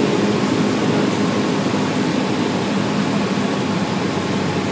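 Cessna 172's piston engine and propeller heard from inside the cabin on final approach: a steady drone with airflow noise.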